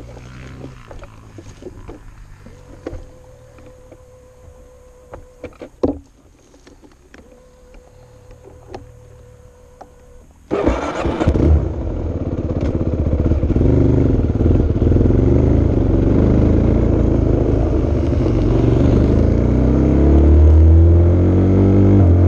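Near-quiet with a few clicks and knocks, then about halfway through an engine starts suddenly and runs loud, its pitch rising and falling near the end as it gets going.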